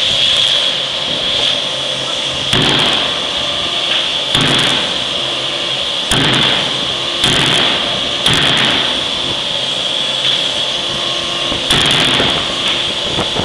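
A 3-ton impressed die forging hammer striking a glowing crankshaft blank in the die: about six heavy blows at irregular intervals, each ringing on briefly, over a steady high hiss.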